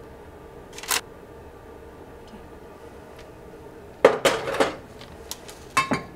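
Kitchenware clinking and clattering: a short knock about a second in, then a louder cluster of clatter about four seconds in and a couple more clinks near the end, as a sauce bottle is set aside and a basting brush is worked over fish fillets on a baking tray.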